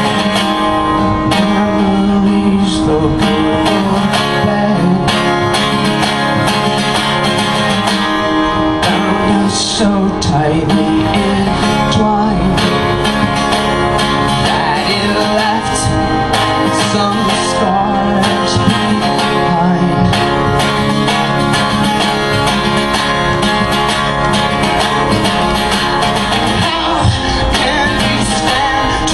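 Live solo acoustic guitar strummed in a steady rhythm, with a man singing along at the microphone at times.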